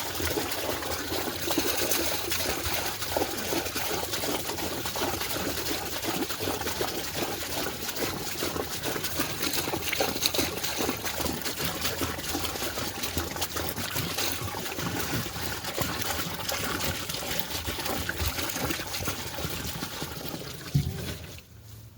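Water pouring and splashing into a tub as it is filled, steady and cutting off abruptly near the end.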